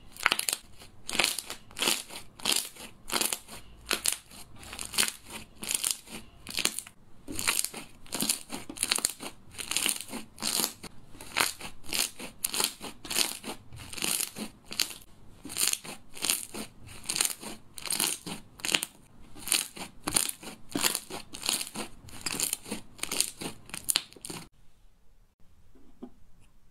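Hands squeezing and pressing fluffy pink slime wrapped in clear slime, making crisp, crackly squishes in a steady rhythm of about two strokes a second. The strokes stop suddenly a couple of seconds before the end.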